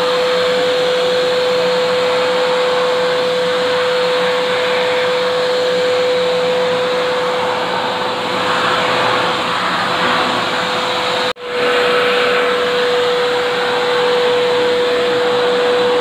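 AmazonBasics wet-and-dry vacuum cleaner running steadily, a constant motor whine over rushing air as its floor nozzle works over a tiled floor. The sound cuts out for an instant about eleven seconds in, then resumes.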